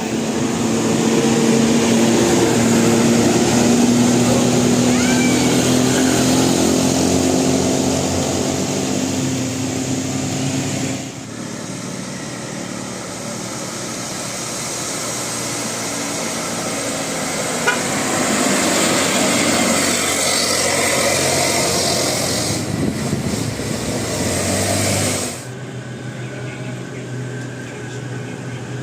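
Buses driving past on the road, engines running over road noise. The sound changes abruptly about 11 and 25 seconds in.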